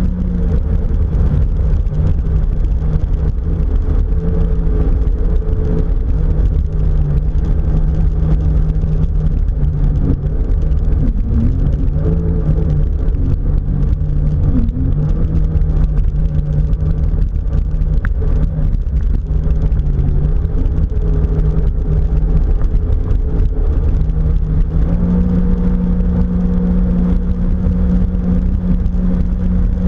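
Jet ski engine running steadily under a heavy low rumble; its note wavers up and down in the middle and settles at a steady, slightly higher pitch near the end.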